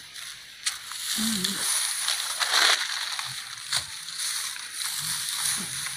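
Leafy plants rustling and crackling as they are handled and pulled by hand, with several sharper snaps among the rustle.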